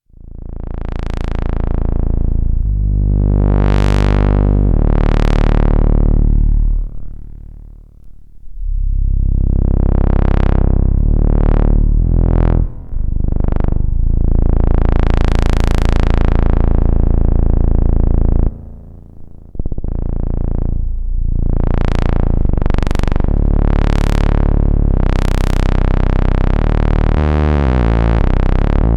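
Ad-vantage 03m monophonic analog synthesizer playing low bass notes, its filter sweeping open and shut again and again, so each note swells bright and then dulls. It breaks off briefly twice, and near the end it runs through a quick sequence of notes.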